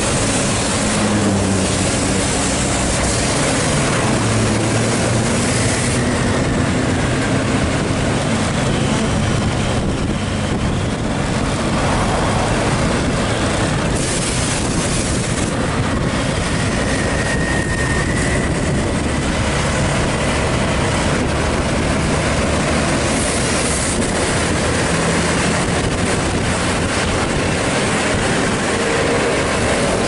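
Steady engine and road noise with wind rush, heard riding close behind a coach bus. Within the first few seconds an engine's pitch rises and falls.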